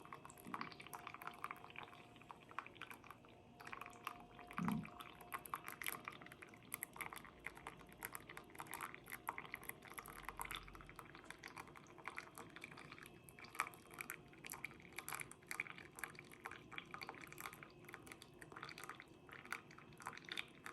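Coffee trickling and dripping from the spigot of a Belgian balance siphon coffee maker into a mug: a faint, slow flow with many irregular drips.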